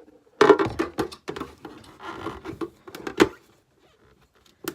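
Knocks and scratchy rubbing from the pieces of an underwater volcano kit being handled and pressed together with sticky foam tape. The loudest knocks come about half a second in and again about three seconds in.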